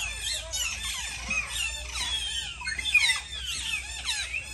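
A flock of small caged parrots chattering, with many overlapping high chirps and squawks.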